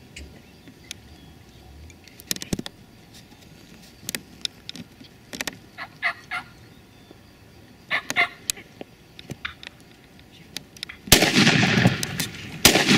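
Wild turkey gobbler gobbling through the first part. Then a loud shotgun blast about 11 seconds in, and a second shot about a second and a half later.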